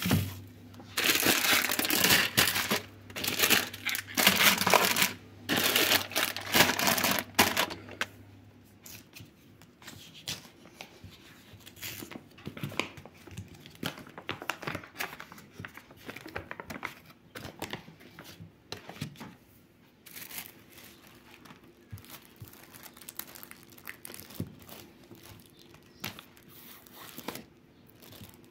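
Packaging crinkling and tearing: loud, dense rustling for the first several seconds, then quieter crackling as a block of butter is unwrapped from its foil-lined paper wrapper and plastic film.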